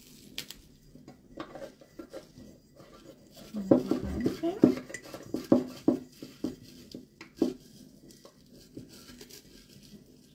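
Clinks and knocks of a light bulb and hand against the hard shiny body of a Scentsy wax warmer as the bulb is fitted into its socket. A quick cluster of sharp clinks comes between about four and seven seconds in, after quieter handling.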